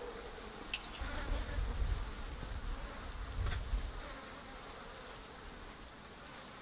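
Flies buzzing, over a low rumble that swells and fades. Two brief high chirps sound about a second in and midway.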